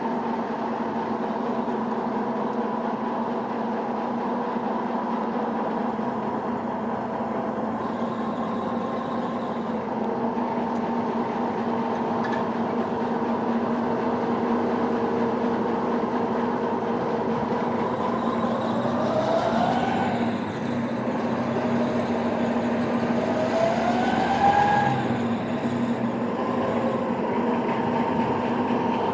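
Railway turntable rotating with a small diesel shunter and an electric railcar on its bridge: a steady mechanical hum, with a rising and falling metal squeal about twenty seconds in and another near twenty-five seconds.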